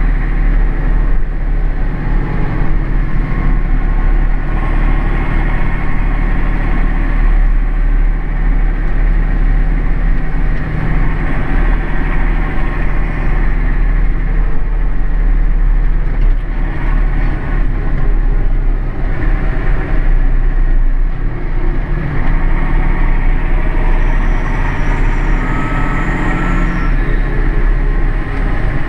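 Massey Ferguson 6499 tractor's six-cylinder diesel engine running steadily on the move, heard from inside the cab, with a strong low drone.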